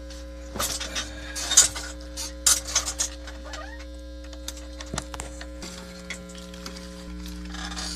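Wire leads being handled and pushed into the spring-clip terminals of an electronic project kit: a run of sharp clicks and rattles in the first few seconds, then a single click, over a steady electrical hum that changes slightly past the middle.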